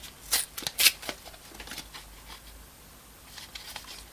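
Thin cardboard being folded and handled: a few short crinkling scrapes in the first second or so, then fainter fiddling as it is pushed in as packing beside the cells in a battery pack.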